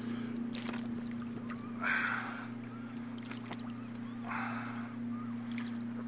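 Kayak paddle strokes in the water from a Sea Eagle 370 inflatable kayak paddled one-handed: three splashing swishes about two seconds apart, the middle one loudest, over a steady low hum.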